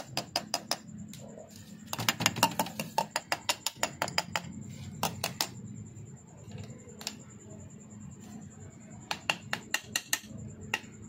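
Light metallic clicks and taps in irregular bursts as a piston squeezed in a band-type ring compressor is worked into a cylinder bore of a Toyota Corolla engine block. The taps come quickest about two seconds in and again near the end.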